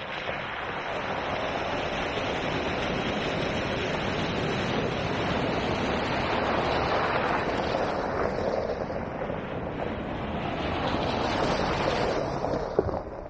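Two 4x4s, a Jeep and then a silver SUV, driving through a flooded trail crossing, their tyres churning and splashing through the water. The splashing swells as the Jeep comes through about halfway in and again, loudest, as the second vehicle passes close near the end.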